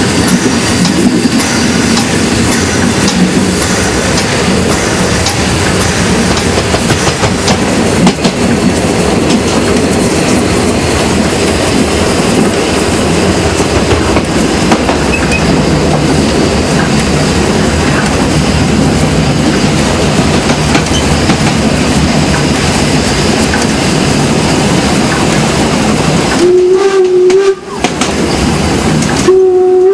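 Narrow-gauge train of the Harz Brocken Railway running downhill: a steady rumble and clatter of wheels on the rails. Near the end the train's whistle sounds twice: one blast of about a second, then another that carries on past the end.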